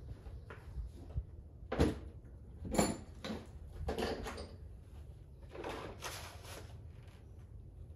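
A few sharp knocks and clatters, the two loudest about two and three seconds in, over a steady low rumble.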